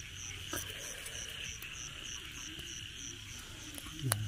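A chorus of night insects in a field: a steady high hiss with a regular high chirp about three times a second, which stops a little after three seconds in. A few faint clicks, and a voice begins just before the end.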